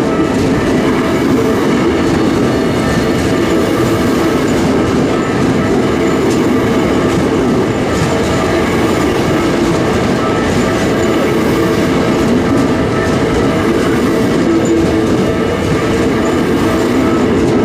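Electric commuter train of the Keikyu Airport Line running over a level crossing, a steady, loud run of wheel and rail noise with clacking over the rail joints and steady tones above it.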